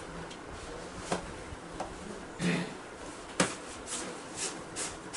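Handling noises: a few scattered light clicks and knocks with short rustling bursts in between, the loudest sharp click about three and a half seconds in.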